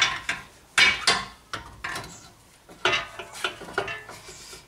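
Irregular metal clanks and knocks from a new lower control arm being manoeuvred into the front suspension, its ball joint being worked up into the knuckle.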